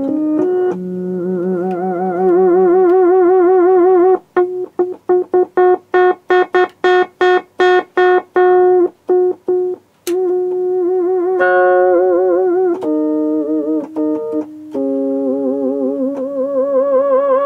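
Korg Delta DL-50 analog synthesizer's synth section being played: held notes and chords with a wavering vibrato, with a run of fast, short repeated notes in the middle. The synth side is working again after its old capacitors were replaced, which the repairer thinks has probably done it.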